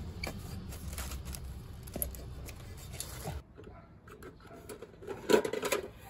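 Hand tools being handled: scattered clicks and rustles, then a short burst of louder clattering about five seconds in.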